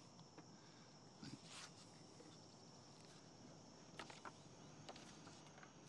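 Near silence: faint outdoor ambience with a steady, high-pitched insect drone and a few faint ticks.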